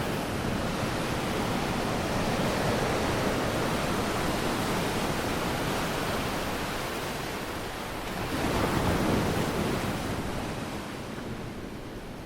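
Steady rush of sea water and surf, swelling again about eight seconds in and fading toward the end.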